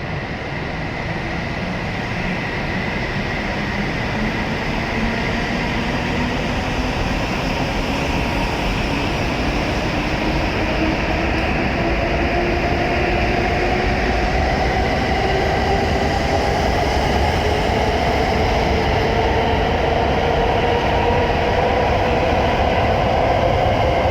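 E7 series Shinkansen pulling out of the station. Its traction motors whine in a steadily rising pitch as it accelerates, over a low running rumble that grows gradually louder.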